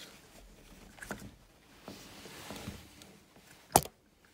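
Hands working the spring-loaded metal retainer housing of an SM465 shift lever: soft metallic clicks and light rustling as it is pressed down and turned, then one sharp, loud click near the end as the housing locks onto its pins.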